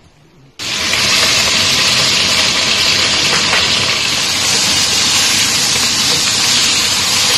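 Sliced beef frying in hot oil in a wok, sizzling loudly and steadily; the sizzle starts suddenly about half a second in.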